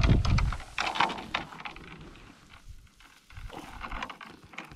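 Dry grass rustling and crackling as a freshly landed fish flops on it and a hand grabs it, with a low rumble on the microphone at the start.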